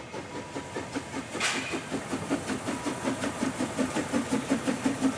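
Narrow-gauge steam locomotives puffing in an even rhythm as the train runs, with a steady hiss of steam and a short burst of hiss about a second and a half in.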